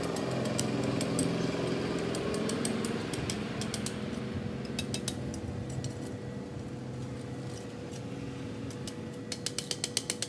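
Hydraulic press motor running with a steady hum, with scattered metallic clicks and a quick run of sharp ticks near the end.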